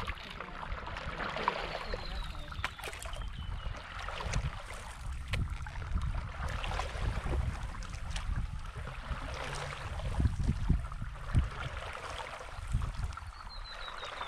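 Paddle strokes and water lapping against a stand-up paddle board, with wind rumbling on the microphone. Scattered small splashes and ticks sound throughout, and a thin falling whistle comes near the start and again near the end.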